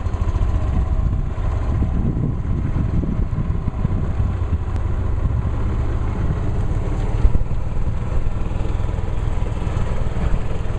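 Golf cart driving along, a steady low rumble from its motor and wheels.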